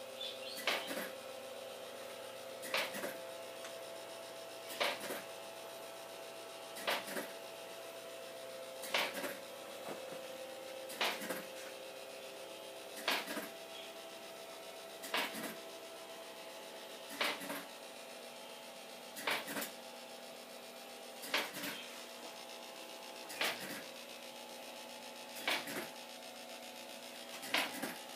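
Lionel O-gauge Hogwarts Express model train running slowly, a steady electric hum with a sharp click, often doubled, about every two seconds.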